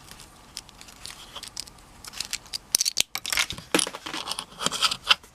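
Small plastic LEGO models being handled: a run of light clicks, scrapes and rattles that grows busier about halfway through.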